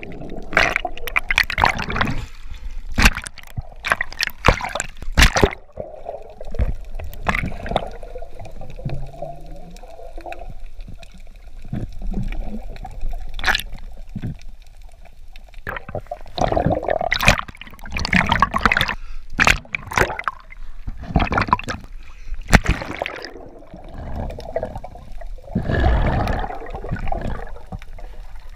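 Muffled underwater gurgling and sloshing of water around a camera held by a swimmer, with frequent sharp clicks and knocks.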